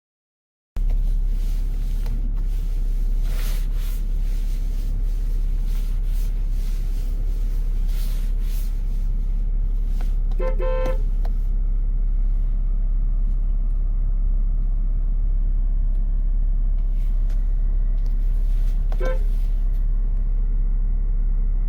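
A BMW F07 5 Series GT's horn sounding in two short toots, one about ten seconds in and a briefer one near the end, over a steady low rumble. The honks test the horn circuit, which runs through the steering-wheel clock spring (SZL).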